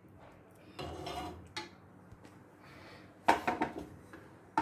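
Steel ladle clinking and scraping against an aluminium kadhai of chickpea curry, with a few clanks about a second in and a sharper cluster of knocks just past three seconds as the pan is handled.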